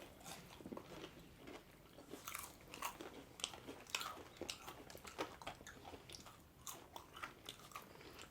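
Eating close to the microphone: chewing with many short, irregular crunches.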